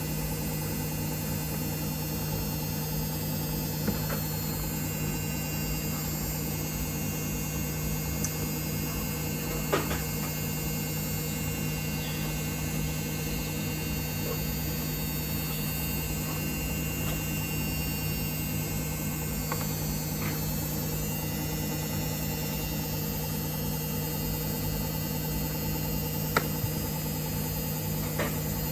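Samsung WF1700WRW front-loading washing machine running, a steady motor hum with a few faint clicks.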